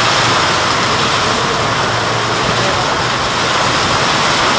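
Rain falling steadily: a loud, even hiss of a downpour, with water running off a roof edge.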